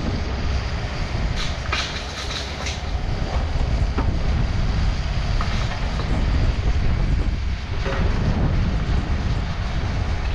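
Takeuchi TB260 mini excavator's diesel engine running under load as the boom and bucket work. Clanks and rattles of the bucket and its linkage come a couple of seconds in and again later on.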